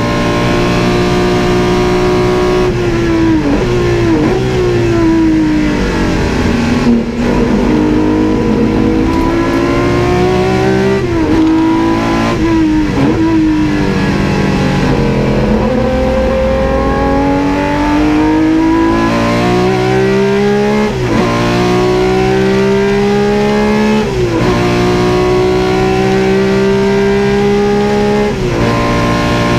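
BMW M1 Procar's straight-six race engine at full throttle, heard from inside the cockpit. The pitch climbs through each gear and drops sharply at each upshift, several times over, and falls away more slowly once about a quarter of the way in.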